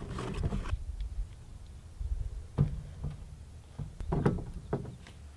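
Handling knocks of PVC pipework: a few light knocks and scrapes as a solvent-glued PVC fitting is pushed onto a pipe end on a plastic truck bed liner, the loudest about four seconds in, over a low steady rumble.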